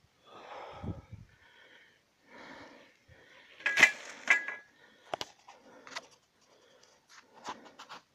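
Irregular rustling and brushing of tall grass and brush as someone walks through it on foot, with scattered sharp clicks and two loud clacks a little before and after four seconds in.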